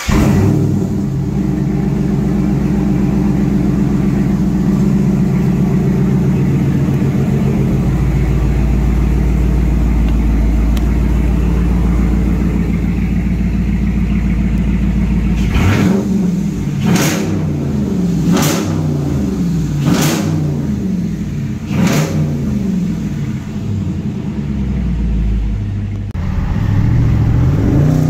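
2022 Dodge Challenger R/T 5.7-litre HEMI V8, breathing through Dynomax Race Bullet resonators in place of the stock mufflers with the resonators deleted, just fired on a cold remote start and running at a steady fast cold idle. About halfway through, the throttle is blipped about five times in quick succession, each a sharp rise and fall in pitch, before it settles back to idle.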